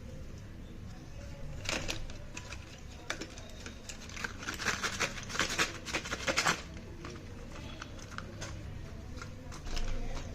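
Close-up bursts of rapid, crisp crackling and clicking: a short run about two seconds in, a longer dense run between about four and six and a half seconds, and another near the end, over a low steady hum.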